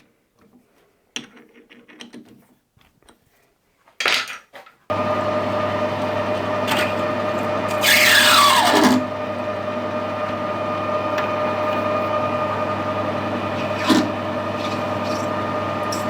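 Metal lathe starting about five seconds in and running steadily, turning a brass bar. A high, falling squeal comes twice as the tool cuts the brass. Before it starts there are a few light handling clicks and a single knock.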